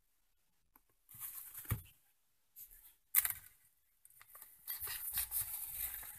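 A book being handled and opened: paper rustling and pages turning, with a light knock about two seconds in. The rustling thickens over the last two seconds as the book is opened flat.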